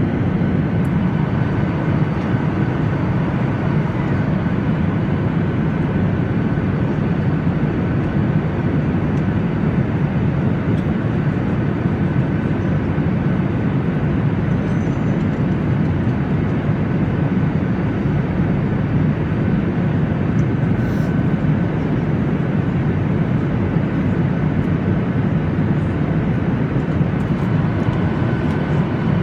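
Boeing 737 airliner cabin noise in flight: a steady, even low rush of engine and airflow noise, with a faint constant whine above it.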